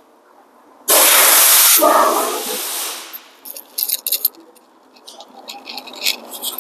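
A loud spray hiss for about two seconds, followed by a run of irregular light clicks as a flat screwdriver works the star-wheel adjuster of the rear drum-in-hat parking-brake shoes through the rotor's access hole. The adjuster is being backed off to loosen a rotor that is too tight to come off.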